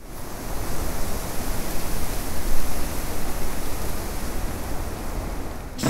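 A rushing noise with no pitch, like wind or surf, swelling over the first couple of seconds and easing off toward the end.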